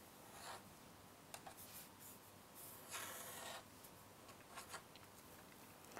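Faint scratching of a fine-tipped pen drawing lines on paper, a few short strokes with a longer one about three seconds in.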